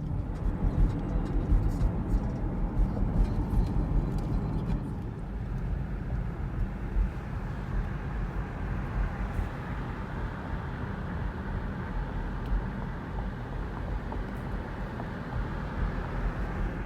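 Vehicle driving on the road: a steady rumble of engine and road noise, a little louder and more uneven for the first few seconds.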